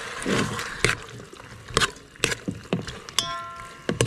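A hand mixing raw squid with tomatoes and onions in a metal pot: wet squelching and irregular knocks against the pot, several leaving a short metallic ring.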